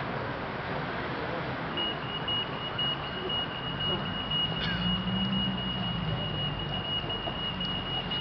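Street background with a motor vehicle's engine running close by, a low hum that swells in the middle. A steady high-pitched electronic beep starts about two seconds in and holds on.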